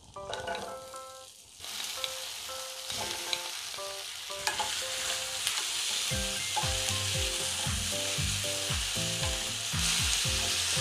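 Diced potatoes, carrots, onion and Spam sizzling in melted margarine and oil in a frying pan while being stirred with a spoon; the frying starts about two seconds in. Light background music plays under it, with a steady beat coming in about six seconds in.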